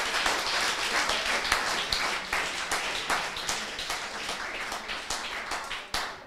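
Audience applauding: many people clapping together, fading away near the end.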